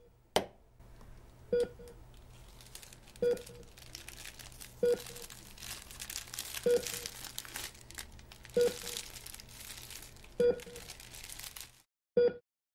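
A hospital patient monitor beeps once about every two seconds, seven times. Under the beeps is continuous crinkling and rustling handling noise, with a sharp click about half a second in. The rustling stops abruptly just before the last beep.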